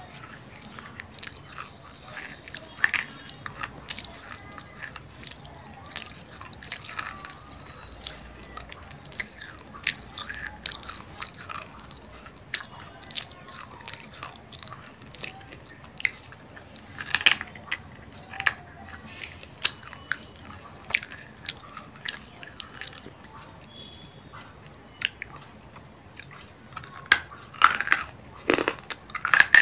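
A person biting and chewing hard, dry pieces of roasted clay close to the microphone: a run of sharp, irregular crunches and cracks, with a dense cluster of loud crunches near the end.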